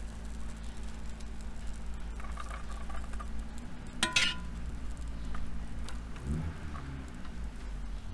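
Perforated metal skimmer scooping plov out of a cast-iron kazan onto a ceramic serving dish: soft pattering of rice landing, with one sharp ringing metal clink about four seconds in, over a low steady hum.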